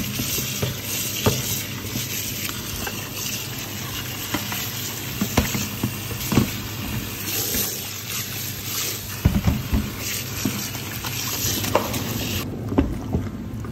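Kitchen tap water running into a plastic sieve of soaked dried oha leaves in a stainless steel sink, with hands rubbing and squeezing the leaves and small splashes and clicks. The running water cuts off shortly before the end.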